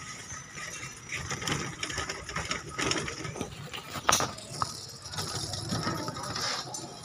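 Tricycle sidecar rattling and clicking as it rides along a street, an uneven mechanical clatter with a sharper knock about four seconds in.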